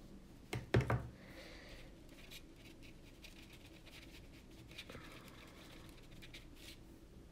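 Paintbrush scratching and dabbing oil paint onto a small canvas in faint short strokes. About half a second to a second in, three sharp knocks stand out, the loudest sounds here.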